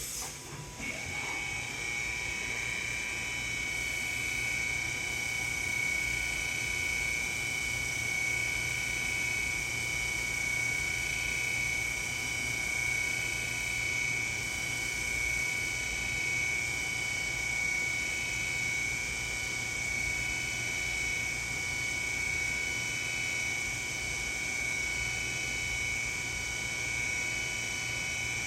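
Bulova BT380 CNC vertical drilling and tapping machine running, with a steady high-pitched motor whine over a low hum that starts about a second in.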